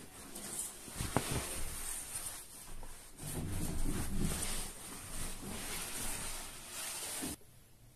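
Cloth wiping and rubbing over a leather sofa: an uneven scrubbing hiss of repeated strokes that cuts off suddenly near the end.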